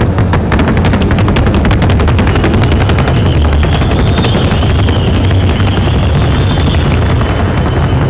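Paso Fino horse's hooves drumming on the competition sound board in the fast, even four-beat paso fino gait: a rapid staccato of hoof strikes, about ten a second, with no break.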